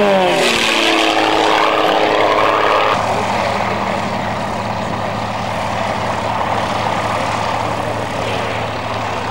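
Single-engine aerobatic propeller plane passing low and close, its engine note dropping in pitch as it goes by. The sound then settles to a steady, fainter drone from about three seconds in.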